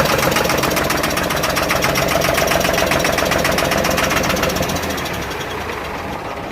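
Diesel engine of a Nissan Quester CWA 280 truck running with a fast, even knock, growing quieter over the last two seconds.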